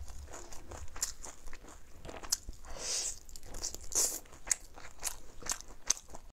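Close-miked eating: a person biting and chewing glazed meat off the bone, with many crisp crunchy clicks and a couple of louder wet smacks midway. The sound cuts off suddenly just before the end.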